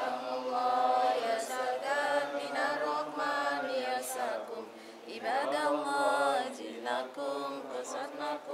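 A group of women chanting an Islamic prayer together in unison, with a brief dip about five seconds in before the chant picks up again.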